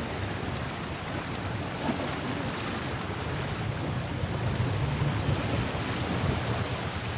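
Steady rush of shallow river water with wind buffeting the microphone, and a low rumble underneath that grows a little louder about five seconds in.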